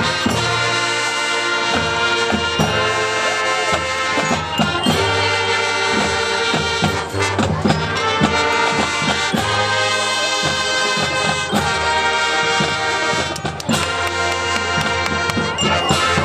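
Marching band playing, brass section sounding sustained chords over drumline hits.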